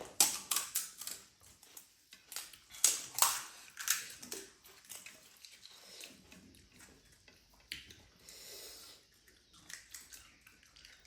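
Crisp panipuri shells crunching and cracking as they are bitten and chewed: a quick series of sharp crunches in the first few seconds, then fainter, scattered ones.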